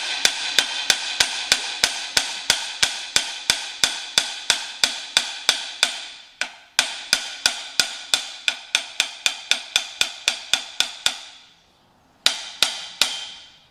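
Hammer tapping on the rod end of a John Deere loader's hydraulic curl cylinder to knock out the head gland, about four metallic, ringing strikes a second. The strikes pause briefly about six seconds in, stop for a moment near eleven seconds, and end with three last strikes.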